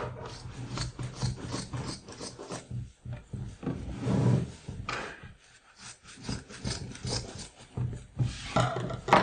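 Scissors cutting through heavy canvas fabric, trimming the excess at the corners of a stretched canvas, in a run of short, irregular rasping snips, with the cloth rubbing and rustling against a wooden desk.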